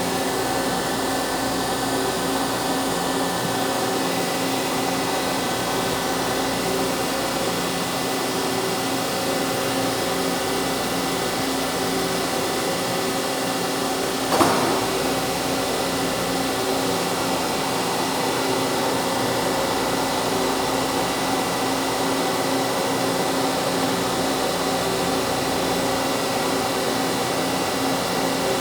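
CNC machine running steadily: a constant mechanical whir with several fixed steady tones, and one short knock about halfway through.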